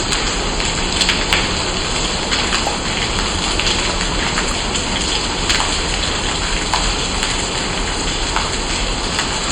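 Steady heavy rain, with individual drops ticking sharply on a surface throughout.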